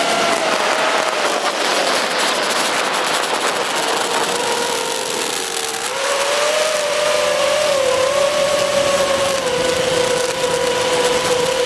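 FPV racing quadcopter's brushless motors and propellers whining in flight, the pitch wavering with throttle and stepping up about six seconds in, over a steady rushing hiss.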